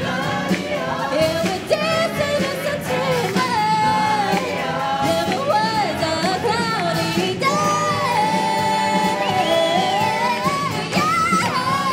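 Live stage ensemble singing a pop number through headset microphones over amplified accompaniment with a steady beat.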